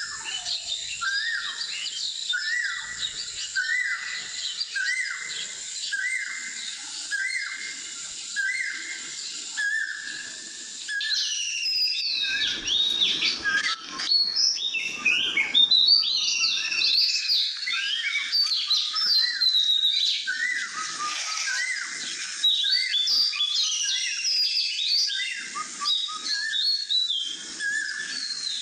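Birds singing: for the first ten seconds or so one short call repeats over and over, then many chirps and whistles overlap in a dense chorus.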